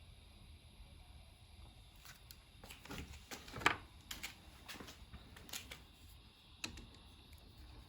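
Light, scattered clicks and rustles of hands handling and working on the strands of a trailer wiring cable, the sharpest click a little after the middle.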